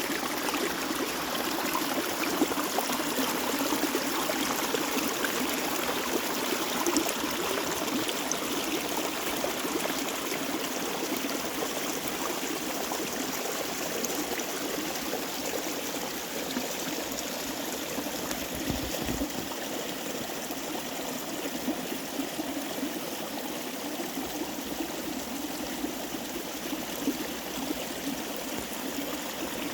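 Mountain stream water babbling steadily over rocks, a continuous gentle trickling rush.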